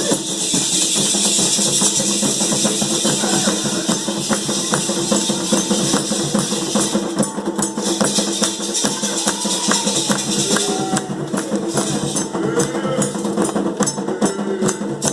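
Candomblé ceremonial percussion: drums and rattling shakers playing a dense, steady rhythm.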